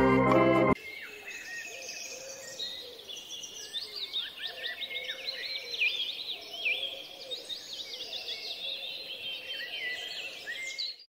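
Organ-like music stops abruptly about a second in. Then many small birds chirp and twitter continuously, with short quick high calls overlapping, until the sound cuts off at the very end.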